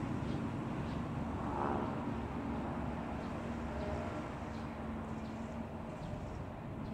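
Steady low engine-like rumble with a steady hum that stops about two-thirds of the way in, and a brief rise in level around a second and a half in.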